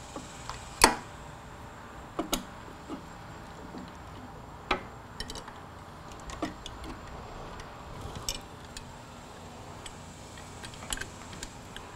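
Scattered light clicks and taps of a motorcycle's wiring harness being clipped back into place by hand, with the loudest click about a second in.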